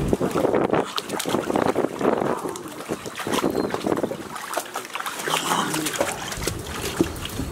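Golden retriever puppies wading and splashing in a shallow pool of water: irregular sloshes and splashes with paw clicks, mixed with short puppy vocal sounds.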